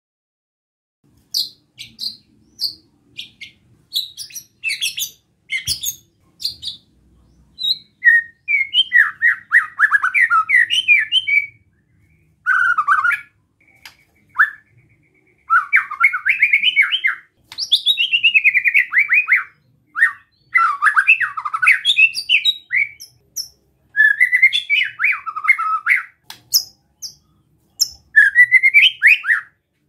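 White-rumped shama giving short high chirps, then from about 8 seconds in a run of fast, harsh rattling phrases, some sweeping downward: the besetan, an agitated call that riles up other shamas.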